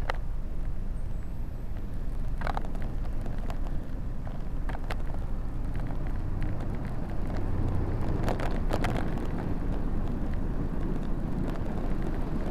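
Ride noise from a bike-mounted camera: a steady low rumble of wind and road, broken by sharp rattling clicks a few times, with a cluster of them about eight seconds in.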